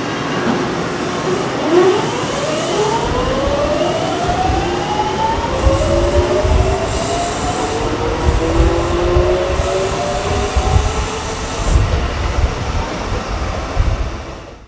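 Kintetsu 3200 series electric train pulling away, its early Mitsubishi GTO-VVVF inverter motors whining in several tones that rise in pitch as it accelerates, over a low rumble of wheels on rail. The sound cuts off suddenly at the end.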